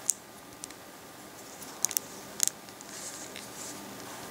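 LEGO plastic plates being pressed onto studs and snapping into place: a few sharp, short clicks, one just after the start, a quick pair around two seconds in and another soon after.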